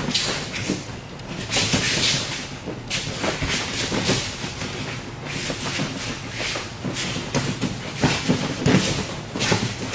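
Judo sparring on a mat: irregular rustling and scuffing of gi cloth and feet, with breaths and dull thuds, coming about once or twice a second.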